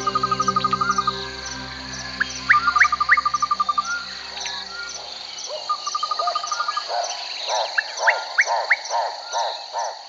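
Chorus of frogs over a steady high insect buzz: rapid trilled pulse trains and a few rising chirps, then repeated croaks about three a second in the second half. A soft musical drone underneath fades out about halfway through.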